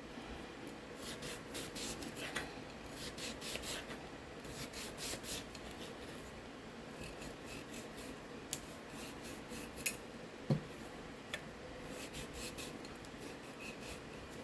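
Knife cutting and paring papaya into bite-size pieces: several bursts of quick scraping strokes, with a few sharp clicks and one duller knock about two-thirds of the way through.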